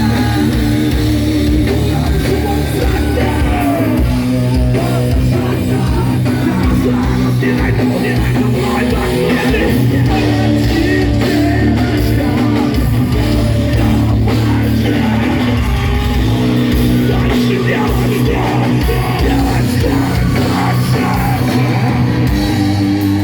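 Rock band playing loud heavy rock, with distorted electric guitars, bass and drums and no clear sung lines.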